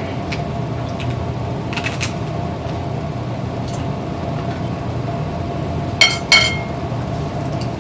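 Steady low hum with a constant tone over it, with a few faint clicks and two short, sharp, high-pitched sounds about six seconds in.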